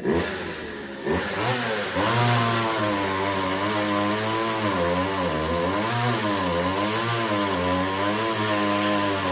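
Partner 350 two-stroke chainsaw revved twice, then held at throttle while cutting through a log, its engine pitch wavering up and down under load. The saw only just manages the cut and still needs tuning after its repair.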